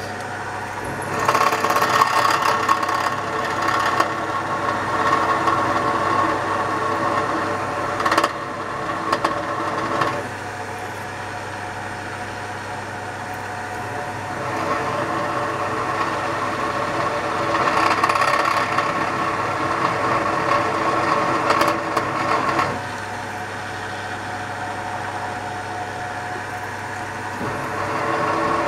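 Pillar drill running, its bit cutting through a lathe drive dog held in a machine vise. The cutting noise comes and goes in three spells as the bit is fed in and eased off, over a steady motor hum, with a sharp click about eight seconds in.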